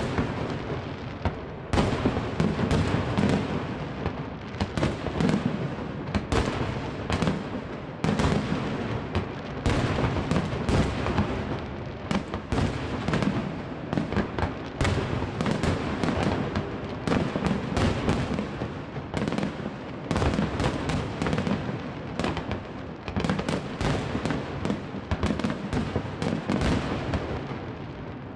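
Aerial fireworks display: shell after shell bursting in a dense run of bangs, with crackling between them. A bigger burst comes every few seconds.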